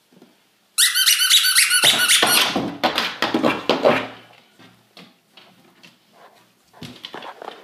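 Squeaker in a plush dog toy squeaking rapidly over and over for about three seconds, starting about a second in, as the toy is tugged back and forth under a door; faint scuffing and rustling follow.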